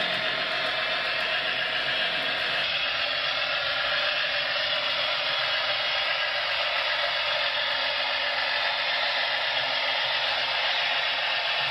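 HO scale model trains running on layout track: a steady whirring rush, changing slightly in tone about two and a half seconds in.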